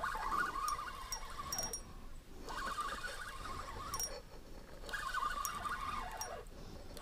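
An animal calling repeatedly: three wavering calls about a second and a half long, each sliding down in pitch at its end, with faint high ticks between them.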